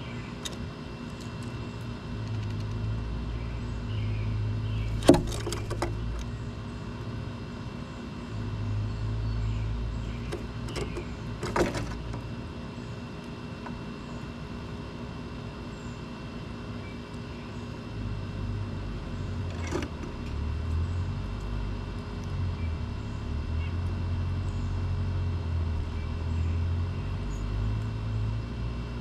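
Low, uneven rumble of wind on the microphone, with a few sharp knocks from birds on the wooden platform feeder, about five, twelve and twenty seconds in; the first knock is the loudest.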